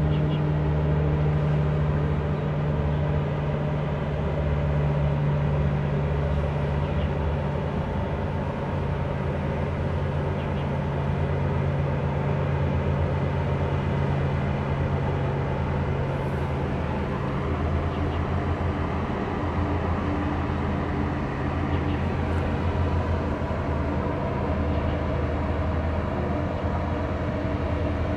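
Low, steady machinery drone from a large crude oil tanker passing close by, with a throbbing pulse under a deep hum. The deepest hum fades out near the end.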